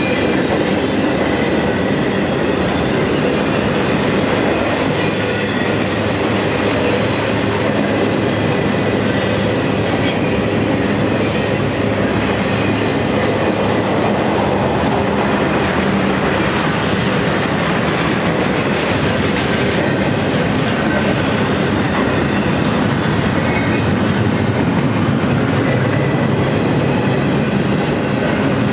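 Cars of a BNSF intermodal freight train rolling past, a loud, steady rumble of steel wheels on rail with a rhythmic clickety-clack.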